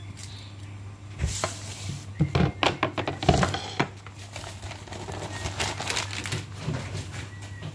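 Plastic bag crinkling as it is handled, with a run of short clicks and knocks from kitchen work on the counter, over a steady low hum.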